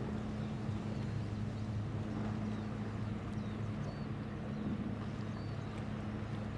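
Engines of the Ōsumi-class transport ship Shimokita running underway with a steady low hum, heard across the water. A few short, faint high chirps come and go over it.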